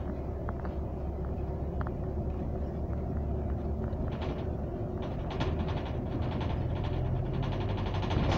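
Double-decker bus in motion heard from inside the upper deck: a steady low engine and road rumble, with short rattles and knocks from the bodywork. The engine note grows stronger about five seconds in.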